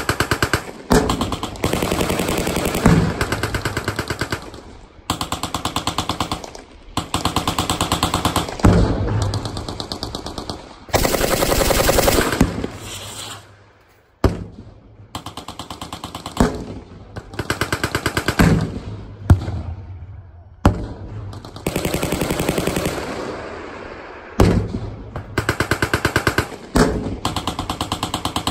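Machine guns firing long bursts of automatic fire on a night infiltration course. The rapid shots come in bursts of one to three seconds, one after another with only brief gaps.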